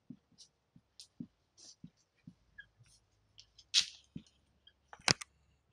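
Dry-erase marker writing on a whiteboard: a run of short scratches, squeaks and taps, one stroke after another, with a few louder strokes about four seconds in and near the end.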